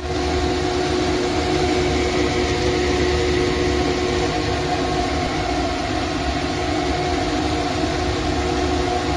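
Steady hum and hiss of a wok stir-fry of green beans and meatball slices cooking on the stove, with a constant low drone underneath.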